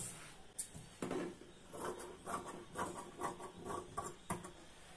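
Large tailor's scissors cutting through folded blouse lining cloth in a series of snips, about two a second.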